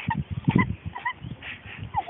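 A kitten's short, high mews, several in a row, with rustling handling noise about half a second in.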